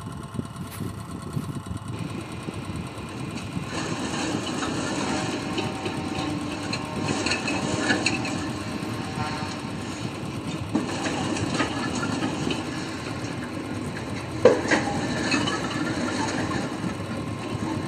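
Coconut dehusking machine running steadily while it tears the fibrous husk off a coconut, with scattered rattles and a sharp knock about fourteen seconds in.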